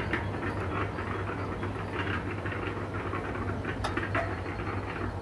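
RocwooD 180-litre 800 W electric cement mixer running empty: a steady motor hum under an uneven rattling clatter from the drum's drive cogs, with a couple of sharper clicks. The uploader puts the gear noise down to the cogs meshing poorly because of too many spacing washers behind the drum.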